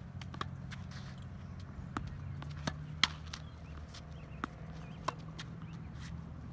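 Tennis ball pops from racket strikes and bounces on a hard court: about six sharp knocks spread over the few seconds, the loudest about three seconds in, over a steady low hum.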